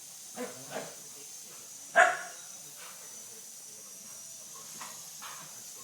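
Dog barking: two short barks about half a second in, one loud bark about two seconds in, then a few fainter barks.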